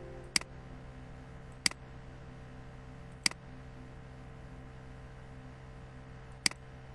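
Computer mouse button clicks: four single, sharp clicks at uneven intervals over a steady faint electrical hum.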